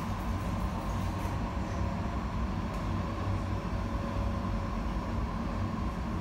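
Cologne KVB Stadtbahn tram running between stops, heard from inside the car: a steady rumble of wheels on the rails with a faint, even whine from the drive.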